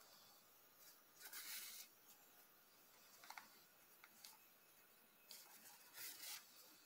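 Faint rustling as yarn is drawn through crocheted stitches with a tapestry needle: about three short scratchy swishes, with a couple of tiny clicks between them.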